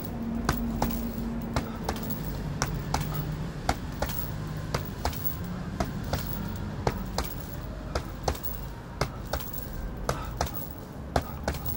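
Boxing gloves punching a hanging heavy bag in a steady run of short, sharp hits, about two to three a second.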